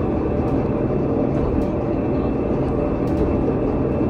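Pilatus Railway rack (cogwheel) railcar running downhill, heard from inside the cab: a steady low rumble of the running gear, with a faint high steady whine on top.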